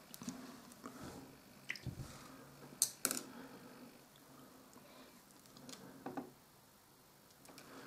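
Faint handling noises close to the microphone as fingers turn a miniature figure and work a paintbrush: small rustles and soft clicks, with a sharper double click about three seconds in and another near six seconds.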